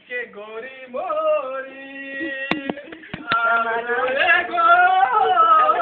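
A man singing in long, held, wavering notes that swoop up and down in pitch, loudest in the second half. A few sharp clicks come about halfway through.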